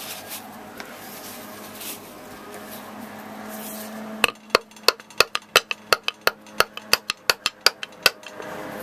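Sharp metallic clicks in a quick, uneven run of about five a second, starting about four seconds in and lasting about four seconds: a tool working the crank of a cut-open hermetic reciprocating compressor in which one piston is seized and will not move. A steady low hum runs underneath before the clicking.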